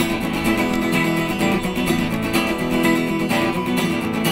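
Acoustic guitar strummed in a steady rhythm, with no singing: an instrumental break between sung lines.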